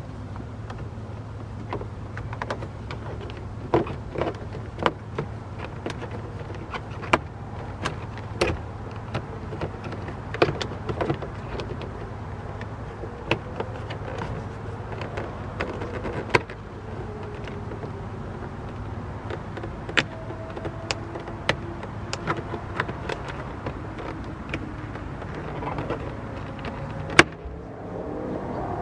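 Scattered clicks, snaps and knocks of plastic car door trim pieces being handled and fitted back in place, over a steady low hum. In the second half a faint whine slides slowly down and then up in pitch.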